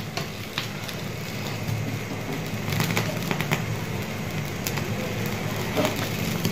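Goat trotter being singed over an open flame: its hair crackling and spitting in scattered sharp pops over the steady rush of the fire, the pops coming more often from about halfway in.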